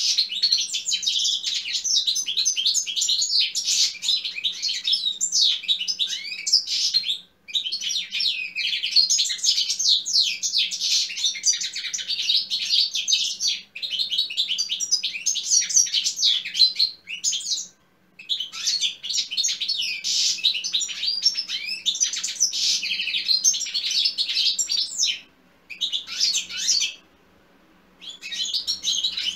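European goldfinch singing: long bouts of fast, tinkling twitters and trills, broken by a few brief pauses.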